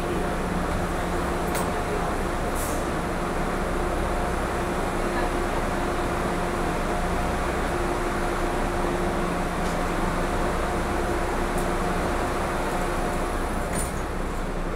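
Inside a moving MBTA Green Line light-rail car: a steady rolling rumble with an even, fixed-pitch electric hum running under it, and a few faint clicks.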